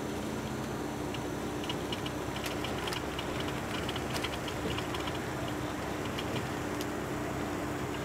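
Steady ride noise inside a moving vehicle, a low hum and rumble, with a run of light, rapid clicking or rattling from about a second and a half in to about five seconds in.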